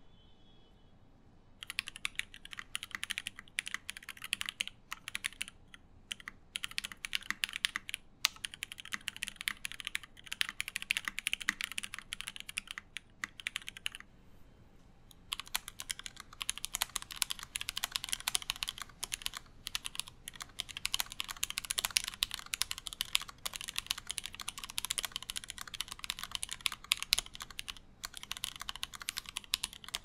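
Fast typing on mechanical keyboards with linear switches: first a UTD 360C, then, after a brief pause about 14 seconds in, a stacked-acrylic Alice-layout custom keyboard with lubed linear switches. The keystrokes come in quick, uneven runs of clacks.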